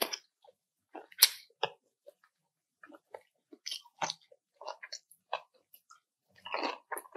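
Crunching bites and chewing of crispy fried chicken skin close to the microphone: a string of short, irregular crackles, the crunches coming thicker near the end.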